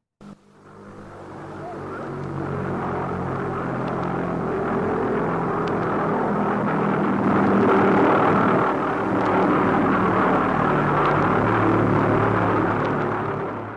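Droning of propeller-driven aircraft engines, several steady tones beating together. It swells in over the first couple of seconds, holds loud, and fades quickly near the end.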